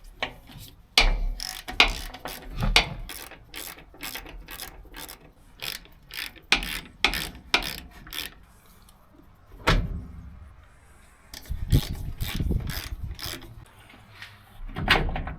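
Hand ratchet wrench clicking in quick runs of strokes as bolts are worked loose, with a few heavier metal knocks near the end.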